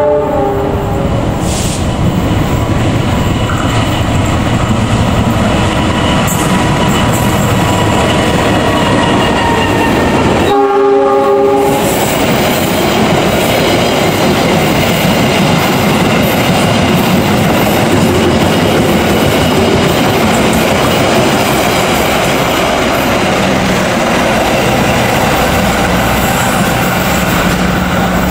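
Diesel locomotive-hauled passenger train passing close at speed, its wheels rumbling and clacking over the rail joints. A train horn sounds for about a second and a half, ten seconds in. A steady low hum grows in near the end.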